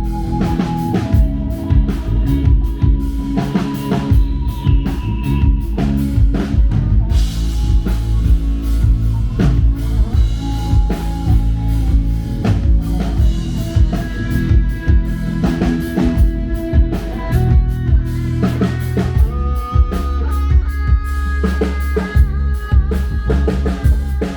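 Rock band playing an instrumental passage at a soundcheck: drum kit keeping a steady beat under bass and electric guitar, with the guitar holding sustained melody notes.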